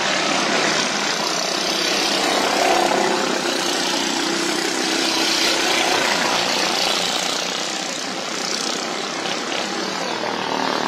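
Several racing lawn mowers' small engines running at speed around a dirt track, a steady drone that dips slightly near the end.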